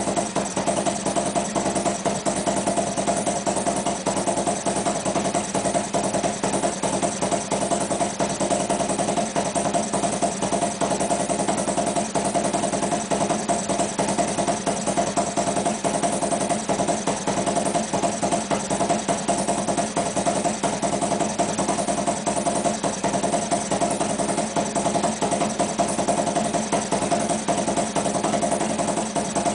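Harley-Davidson V-twin motorcycle engine idling steadily as it warms up after a hard start.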